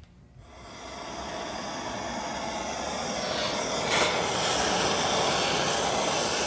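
Gas torch burning with a steady hiss as its flame heats the cast-iron 440 block to loosen a seized plug. The hiss builds up over the first couple of seconds and is briefly louder about four seconds in.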